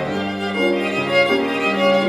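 Violin playing a melody of several bowed notes in a row over low piano accompaniment.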